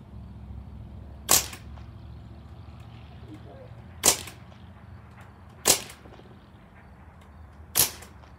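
Ruger 10/22 air rifle firing four sharp shots, spaced about one and a half to three seconds apart.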